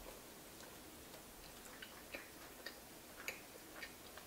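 Faint, wet mouth clicks of someone chewing a bite of soft filled donut, a small click every half second or so from about two seconds in.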